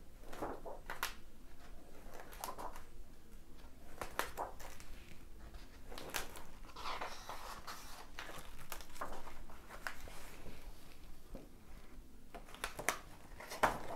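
Stiff paper pages of an old spiral-bound fashion album being turned and handled: scattered paper rustles and soft page flips, with a longer rustle about seven seconds in.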